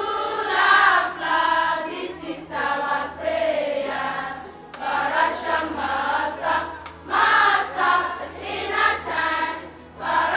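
A large crowd of schoolchildren singing together in unison, phrase after phrase with short breaks between.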